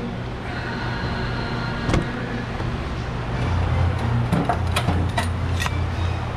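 Clicks and light knocks of parts being fitted back onto a pickup's engine, over a steady low hum that grows louder about halfway through.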